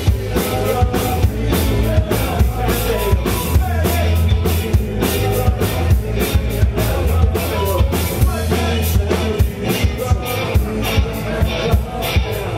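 Live rock band playing: drum kit, bass guitar, electric guitar and keyboard, with singing into the microphones over a steady driving beat.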